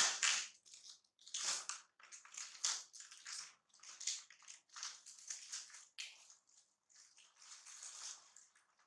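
Plastic packaging crinkling and rustling in irregular bursts as round crackers are unwrapped and handled.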